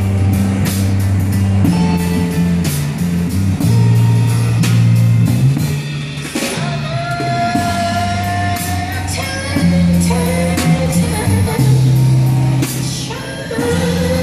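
Live amplified band playing: a drum kit keeping a steady beat under a low bass line that steps from note to note. From about six seconds in, a voice sings long held notes over it.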